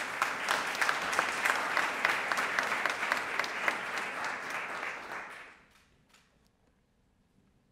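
Audience applauding: dense clapping that holds steady, then dies away about five and a half seconds in.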